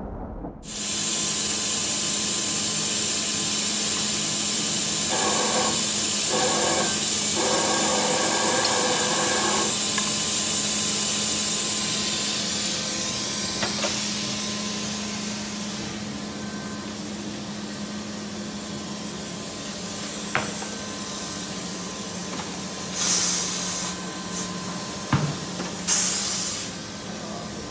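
Tyre workshop noise: a steady hiss over a low hum, fading after about the first half. Then come a few sharp metallic clicks and two short bursts of hiss near the end.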